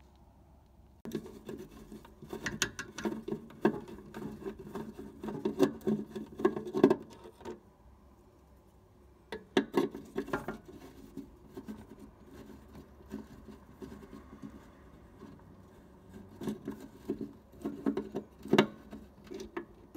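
A 1/4-inch socket driver turning out the sheet-metal screws that hold a gas furnace's igniter bracket, with irregular metallic clicking and rattling. A dense run of it lasts several seconds, then after a pause come shorter spells.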